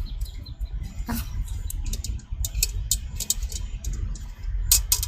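Steady low rumble with many short, sharp clicks scattered through it, the loudest cluster near the end.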